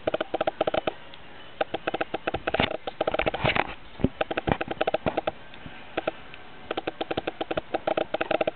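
Rapid, irregular clicking and tapping, coming in quick runs, with two short breathy rushes of noise about two and a half and three and a half seconds in.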